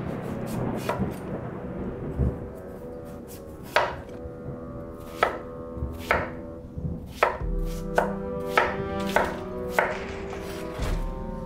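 Wide-bladed kitchen knife cutting raw pumpkin on a wooden cutting board: slicing through the flesh at first, then a run of sharp knocks as the blade chops down onto the board, coming faster, about two or three a second, in the second half.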